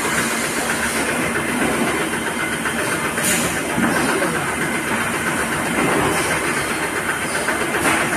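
Steady, loud machinery noise from a vacuum brazing line loaded with racks of stainless steel vacuum flasks, with two short hisses about three and eight seconds in.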